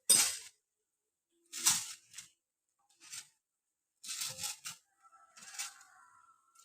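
Sharp chopping and cracking strikes on a coconut tree, the loudest right at the start and then one roughly every second or two, with a quick cluster of several about four seconds in.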